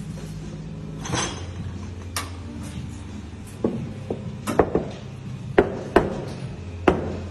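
Sharp knocks and clinks of paper cups, ceramic ware and stainless steel milk jugs being handled and set down at an espresso bar, about seven in the second half, over a steady low machine hum.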